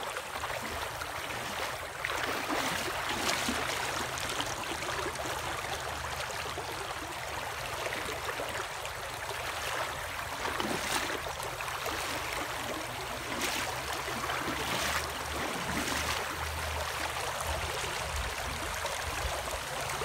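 Water rushing and splashing as a bird-style tuna spreader bar and its squid teasers are pulled through shallow water, a steady wash with a few sharper splashes.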